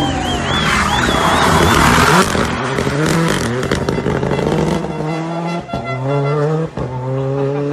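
Renault Clio rally car's tyres squealing as it slides through a hairpin. Its engine then revs hard as it accelerates away, the pitch climbing in steps as it shifts up twice near the end.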